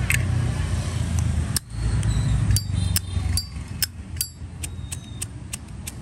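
A 1993 brushed-chrome Zippo lighter's lid being flipped open and snapped shut: about a dozen sharp metallic clicks at irregular spacing, some with a brief ring. It is the sound of its original hinge cam, never adjusted. A steady low rumble runs underneath.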